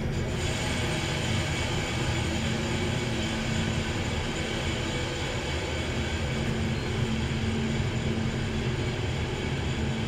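KONE traction elevator car travelling down between floors, heard from inside the cab: a steady running rumble and hiss with a faint low hum.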